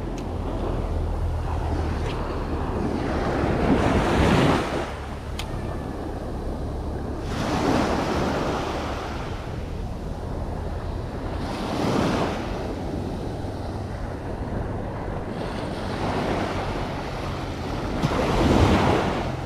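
Sea waves breaking and washing onto the shore, one swell every three to four seconds, the loudest about four seconds in and again near the end, over a low rumble of wind on the microphone.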